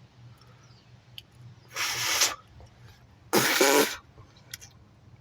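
A man coughing twice, two short harsh bursts about a second and a half apart.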